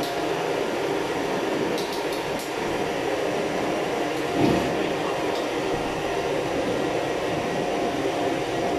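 Gas burner of a commercial stainless-steel Chinese wok range running with a steady loud rush of flame. About four and a half seconds in there is a short low whoomp as the valve is opened up and the flame flares high. A few light clicks come about two seconds in.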